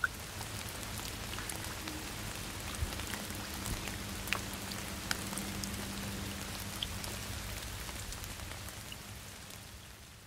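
Steady rain falling, an even hiss with scattered sharp drop ticks, dying away near the end.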